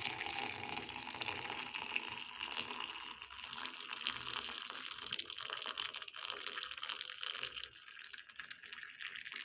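Hot boiled liquid being poured off and strained, a steady splashing trickle with small ticks that thins out about three-quarters of the way through.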